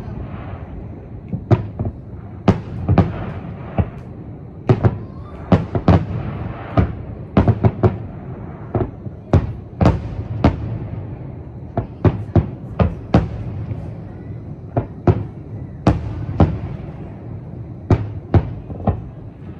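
Aerial firework shells bursting in an irregular run of sharp bangs, about one or two a second, each trailing a rumbling echo over a continuous low rumble.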